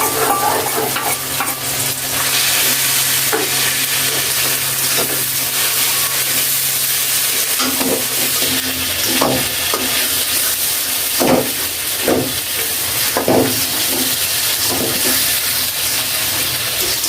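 Freshly added garlic, onion and green chilli paste sizzling in hot oil in a kadai. From about halfway on, a spatula scrapes and stirs it in strokes roughly once a second.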